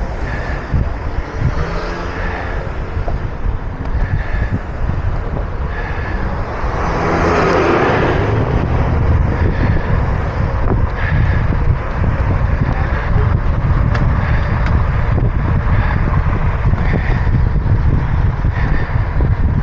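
Wind buffeting the microphone of a moving bicycle amid road traffic, with a vehicle passing close by, swelling and fading about seven to nine seconds in.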